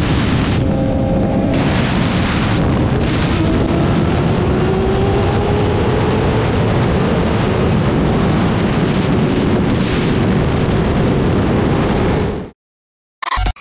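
Heavy wind buffeting on the microphone of a BMW S1000RR at about 200 km/h, with the inline-four engine faintly underneath, its pitch rising for a few seconds as the bike pulls harder. The sound cuts off abruptly near the end.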